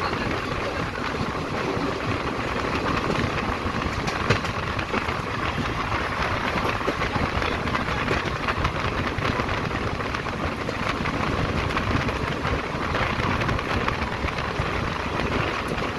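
Steady rumble and hiss from the train, even throughout with no clear rhythm, and a single click about four seconds in.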